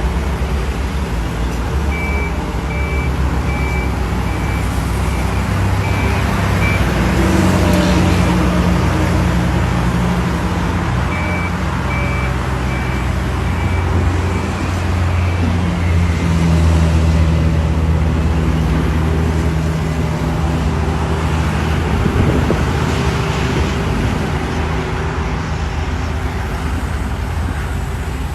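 Diesel engines of heavy construction machinery running under load, their pitch rising and falling. A reversing alarm beeps about twice a second in two spells, a few seconds each.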